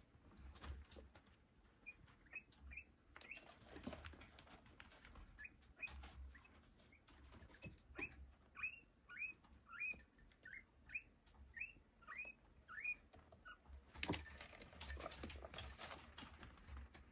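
Guinea pig giving a run of short, high, bird-like chirps, about two a second, each dipping in pitch. Rustling in the bedding near the start and again near the end.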